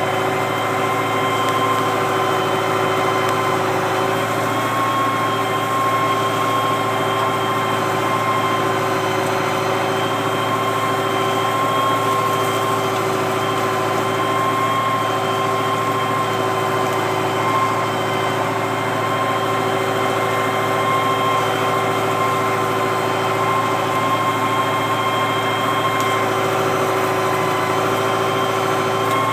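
John Deere 6010 tractor engine running steadily under the load of pulling a four-furrow Kverneland plough: a constant drone with a few steady whining tones, unchanging throughout.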